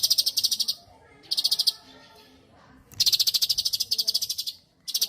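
Cucak cungkok singing: high-pitched, rapid pulsed trills in bursts, one at the start, a short one about a second in, a longer one of about a second and a half from about three seconds in, and another starting near the end.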